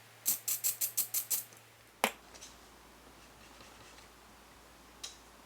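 A quick run of about eight sharp metal clicks, roughly six a second, then one sharp click about two seconds in and a faint one near the end. This is a hand tool working at a bolt inside a Mazzer Mini coffee grinder, and the bolt will not come out.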